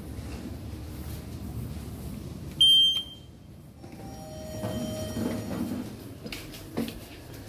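Lift fixture signals on an Otis GEN2 lift: a short, loud, high-pitched electronic beep about two and a half seconds in, then a softer, lower electronic tone lasting over a second, and two light clicks near the end.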